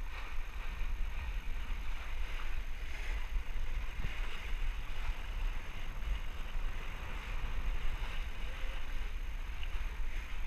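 Water rushing and splashing along the hull of a boat under way, with wind rumbling on the microphone.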